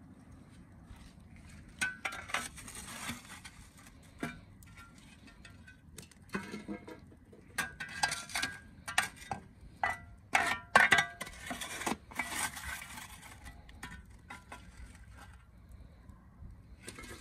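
Metal shovel scraping up hot coals and tipping them onto a cast-iron camp oven's lid, the coals clinking and rattling on the iron in several separate scoops.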